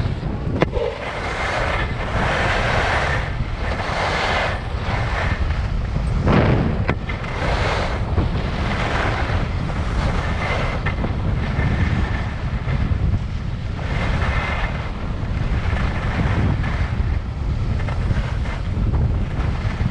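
Wind rumbling on the microphone of a skier's camera while skiing downhill, with skis scraping over packed, groomed snow in hissing swells every second or two as they turn.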